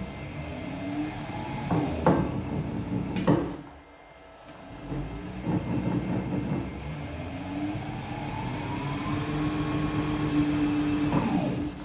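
Oscar Ehrlich metal lathe running on a frequency drive, its motor and gearing giving a steady mechanical hum and gear whine. There are two sharp clunks about two and three seconds in, then the sound drops away and builds again with a slowly rising pitch as the speed is ramped up. It winds down near the end.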